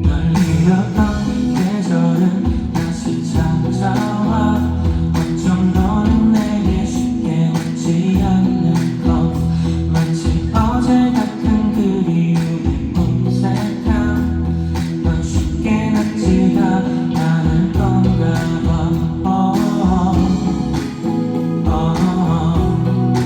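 Live pop-ballad band music with a singer. Drums and bass come in at the start, under a steady accompaniment of sustained chords.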